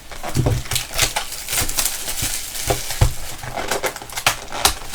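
Trading cards and their packaging being handled on a table: an irregular run of rustles, taps and light clicks.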